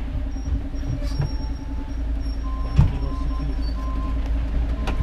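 Tourist road train running steadily, a continuous low rumble and hum from the ride, with two sharp knocks, about a second in and near the 3-second mark. Faint music from the onboard commentary speakers plays over it.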